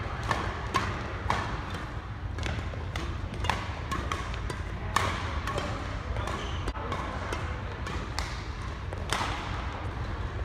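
Badminton rally: rackets striking the shuttlecock back and forth, with quick sharp hits and players' footfalls on the court floor at an irregular pace, a few hits louder than the rest, over a steady low hum.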